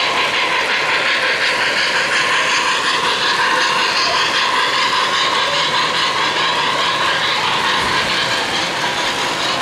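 O-gauge model steam locomotive and freight train of covered hopper cars rolling past on three-rail track: a steady rushing rumble of wheels on rails.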